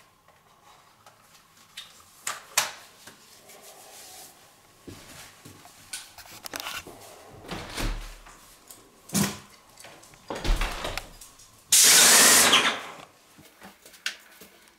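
Scattered knocks and clicks of handling, then about twelve seconds in a loud hiss lasting about a second: a Wagner Control Pro 250M airless spray gun spraying paint.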